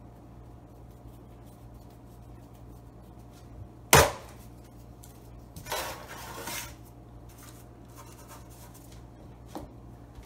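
Hands handling dough on a plastic cutting board and a parchment-lined aluminium sheet pan: one sharp knock about four seconds in, then about a second of rustling and scraping, and a small click near the end. A steady low hum runs underneath.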